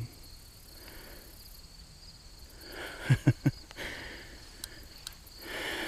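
Faint, steady chirping of crickets. About three seconds in, three short low-pitched blips sound in quick succession, and a few light clicks follow.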